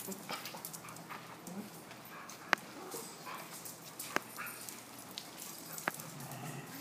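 Small dogs whining and whimpering faintly, with three sharp clicks spaced evenly and louder than the dogs.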